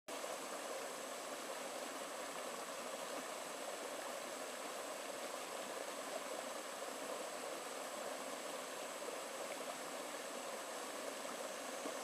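Shallow rocky stream flowing and babbling over stones through a small riffle, a steady, even rush of water with no breaks.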